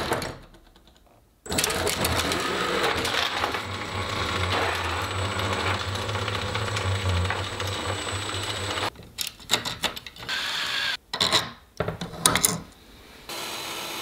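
Brushless motor driving a roller chain to the big rear wheel, the chain rattling and whirring steadily from about a second and a half in. Near the end the motor is run in several short bursts.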